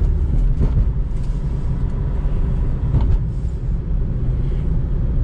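Chevrolet's 1.3-litre turbo-diesel engine running under way, heard from inside the cabin as a steady low rumble mixed with road noise.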